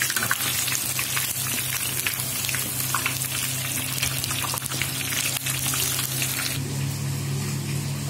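Fish pieces frying in hot oil in a kadai, a dense sizzle full of small crackling pops. About six and a half seconds in the sizzle drops away, leaving a steady low hum.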